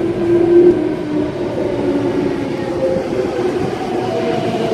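Alstom Metropolis driverless metro train pulling away from the platform, its electric traction drive giving a steady whine of several tones that edges up in pitch near the end.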